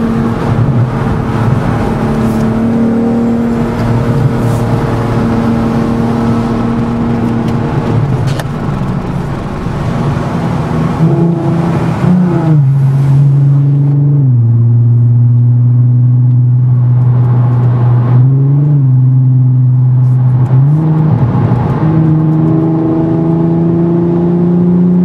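Volkswagen Golf R32's 3.2 VR6 engine, heard through its custom 3-inch exhaust with a hotdog resonator, droning inside the closed cabin at freeway speed. The note holds steady at first, drops in pitch about halfway through with a few short dips and rises, then climbs steadily near the end as the car accelerates.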